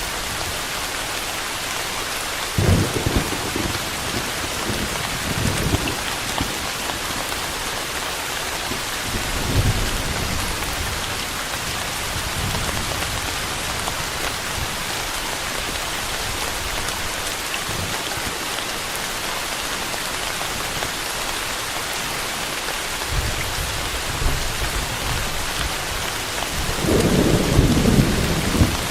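Steady rain falling, an even hiss, with distant thunder rumbling low a few times: briefly about three seconds in and again near ten seconds, and a longer, louder roll near the end.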